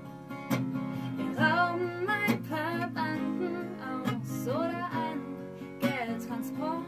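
Acoustic guitar strummed in steady chords, with a woman singing over it.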